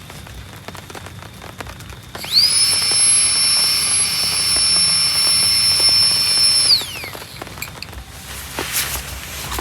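A small high-speed electric motor spins up with a quickly rising whine, runs at a steady high pitch for about four seconds, then winds down and stops. Rain patters around it.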